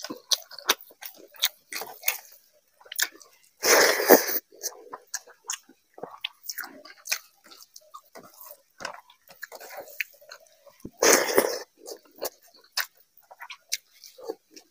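Close-miked chewing of fish curry and rice eaten by hand: a run of short clicks throughout, with two louder, longer sounds about four and eleven seconds in.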